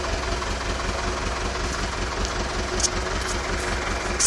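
Freshly rebuilt Nuffield tractor engine idling steadily, an even low pulsing.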